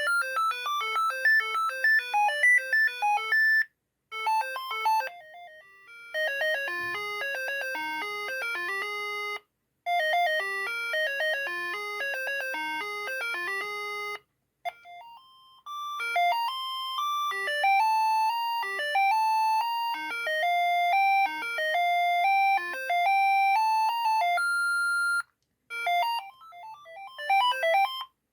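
A Siemens ME45 mobile phone playing its built-in ringtones one after another. Each is a short electronic melody of quick beeping notes, and they are separated by brief silences. Near the end comes a single held tone.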